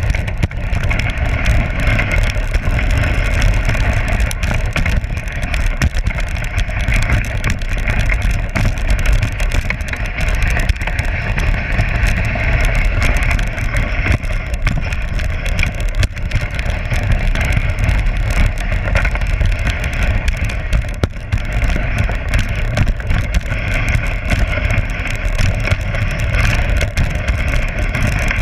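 Dog sled running over packed snow: the steady scraping hiss of the runners on the trail, with a low rumble from the sled's vibration throughout.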